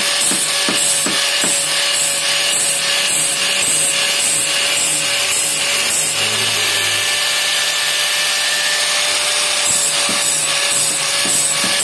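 Angle grinder running with a steady whine, its disc grinding the steel teeth of a band saw blade to sharpen them. It works in short repeated strokes, about three a second, with a steadier stretch in the middle.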